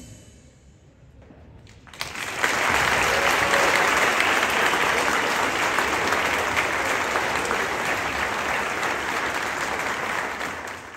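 Audience applauding a school band. The applause breaks out suddenly about two seconds in, after a brief hush as the band's last notes die away, and then holds steady, tapering slightly near the end.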